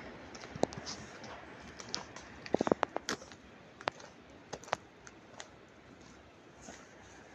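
Irregular sharp clicks and knocks, a quick cluster of them about two and a half seconds in and scattered single ones after, over a faint steady hiss.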